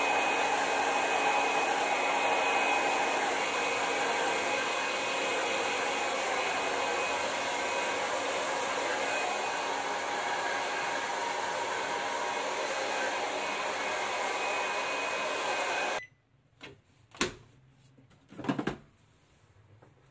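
Handheld hair dryer blowing steadily, with a faint hum from its motor under the rush of air. It is switched off suddenly about four-fifths of the way through, followed by a few short knocks.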